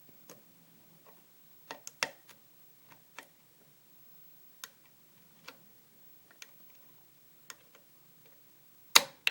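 Lock pick working the pins of a pin-tumbler challenge lock held under heavy tension: scattered small sharp clicks as the pins are lifted, with a big click about nine seconds in as a pin sets at the shear line.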